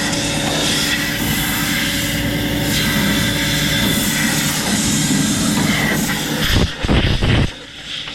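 Blowing leftover hay out of a hay baler: a steady rush of blown air over an engine's steady hum. Near the end come a few loud low rumbles, then the noise drops off.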